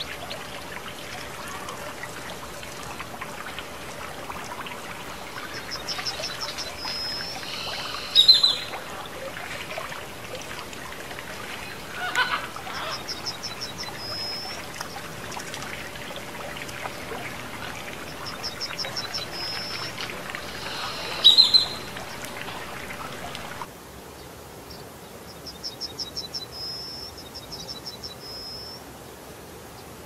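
Water trickling and splashing in a stone fountain. A small bird repeats a short, high song of rapid ticks ending in a thin whistle every few seconds, with two sharp, loud calls. The trickling stops about three-quarters of the way through while the song goes on.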